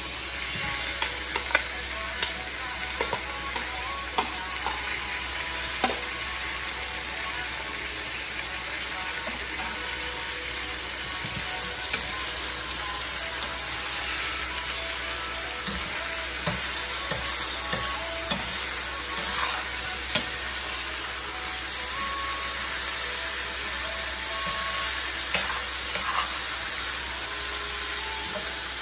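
Raw beef pieces sizzling as they fry in hot chili oil in a skillet, with a metal spoon stirring the meat and knocking against the pan now and then.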